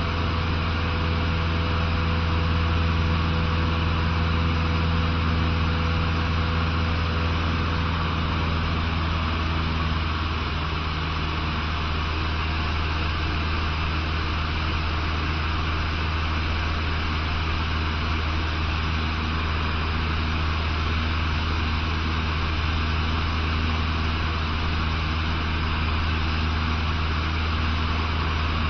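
A Cessna 150's Continental O-200 four-cylinder engine and propeller running steadily in flight, heard inside the cabin as a constant low hum with a hiss over it. The note eases slightly about ten seconds in.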